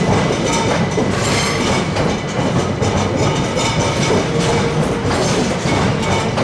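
Train rolling at close range, its wheels clattering over the rails and points, with a thin steady high whine under the clatter.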